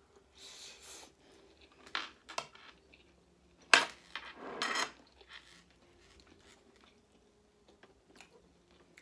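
Eating sounds from two people having grilled kebab: chewing and biting, with scattered clicks of dishes and cutlery, the sharpest a little under four seconds in.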